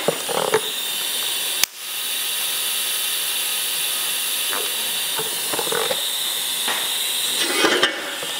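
TIG welding arc hissing steadily while tack-welding a downpipe joint. It strikes with a sharp crack about a second and a half in and runs for about six seconds before cutting off near the end.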